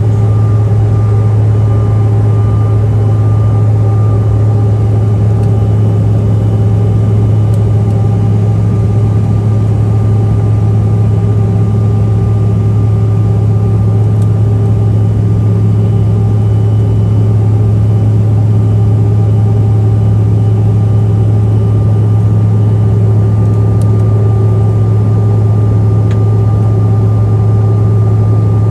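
Steady, loud drone of an airliner's jet engines and airflow heard from inside the passenger cabin during the climb after takeoff. It has a deep hum and a few steady higher tones, unchanging throughout.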